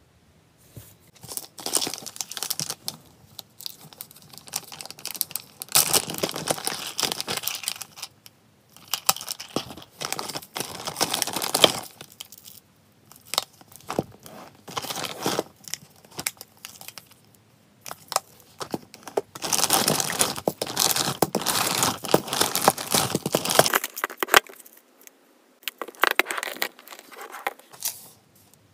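Plastic packaging crinkling and tearing in several bursts of a few seconds, with sharp clicks of hard plastic jars being handled and set down.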